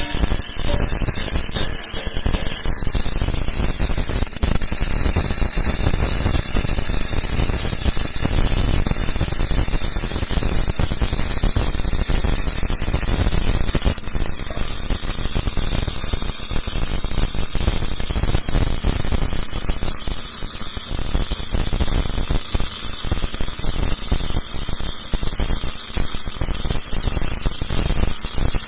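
Electric arc welding: a steady, dense crackle of the arc running without a break as a bead is laid.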